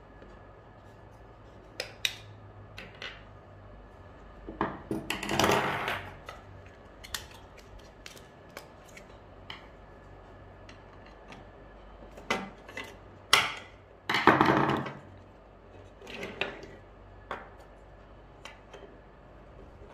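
Hard plastic parts of a BV20 note acceptor being pried apart and handled: scattered clicks and clacks, with longer, louder clatter about five seconds in and again around fourteen seconds.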